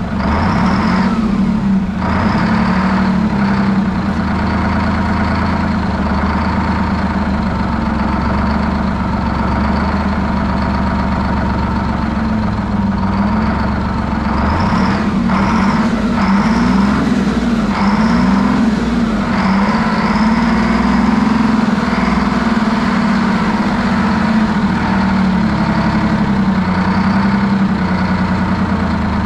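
Detroit Diesel 12V71TT two-stroke twin-turbo V12 diesel running steadily at a fast idle, with a high whine over the engine note. About halfway through, the pitch wobbles up and down for a few seconds before settling.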